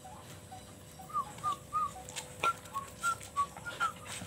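Village dog whining excitedly in a run of short, high squeaky notes, about three a second, starting about a second in.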